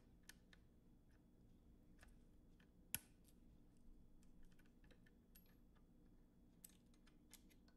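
Faint, scattered metallic clicks and taps of a screwdriver working at the transport linkage of a 1968 Sony TC-560D reel-to-reel deck, as the linkage is loosened and lifted off. One sharper click comes about three seconds in.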